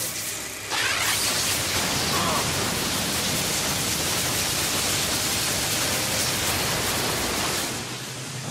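Loud, steady rushing noise that starts abruptly under a second in and fades out near the end, with a few brief falling whistle-like streaks early on.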